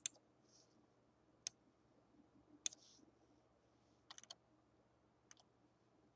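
Faint computer mouse clicks over near-silent room tone: single clicks about a second and a half apart, with a quick run of three about four seconds in.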